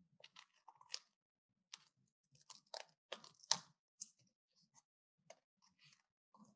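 Scissors snipping through a sheet of thin paper: a faint run of short, irregular crisp cuts, loudest about three and a half seconds in.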